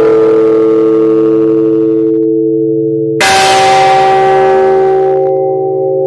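Bronze church bell tolled by a cord pulled on its clapper: the long hum of one stroke dies away, and the next strike lands about three seconds in, strokes spaced roughly four seconds apart. This is the slow toll of a death knell for a woman.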